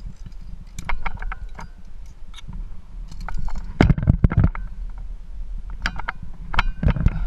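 Steel via ferrata carabiners clinking and clicking against the wire safety cable and rock as they are handled, many short metallic clicks with brief ringing. There are heavier knocks and scuffs about four seconds in and near the end, over a steady low rumble.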